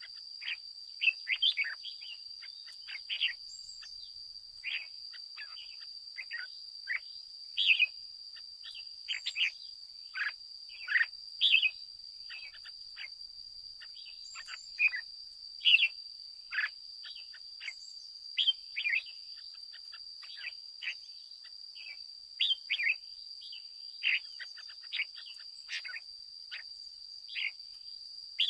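Red-whiskered bulbul calling: a lively run of short, sharp chirping notes, many falling in pitch, coming in quick clusters. Underneath runs a continuous, steady high-pitched tone.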